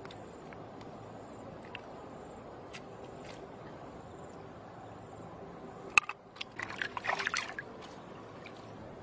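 Wet tearing and squelching of a frog being skinned and gutted by hand: a sharp click about six seconds in, then about a second of crackly wet tearing, over a steady background hiss.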